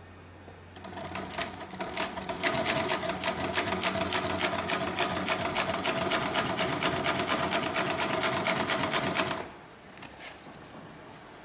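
Hightex 768 two-needle post bed compound-feed (bottom, needle and walking-foot feed) upholstery sewing machine stitching fabric. It starts about a second in, speeds up over a second or so, and runs fast and steady with rapid even needle strokes, then stops abruptly after about eight seconds of sewing.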